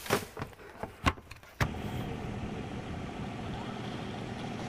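A few sharp knocks of a plastic wheeled trash cart's lid being handled. About a second and a half in, this switches abruptly to a steady low engine hum, like an idling vehicle.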